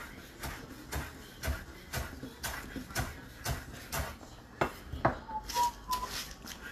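Light clicks or knocks, evenly spaced about twice a second, with a few brief faint high tones near the end.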